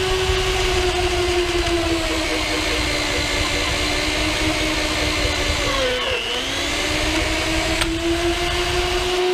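Jancy magnetic drill motor running an annular cutter into steel plate with a steady whine. About six seconds in the pitch sags as the cutter bites under load, then it climbs back.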